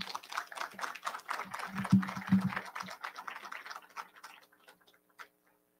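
Small audience applauding, the clapping thinning out and dying away about five seconds in.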